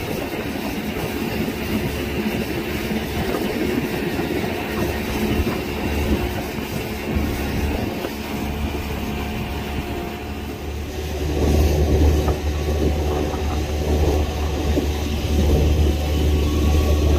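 Boat under way: its engine running steadily with wind and water rushing past. The low rumble grows heavier and louder about eleven seconds in.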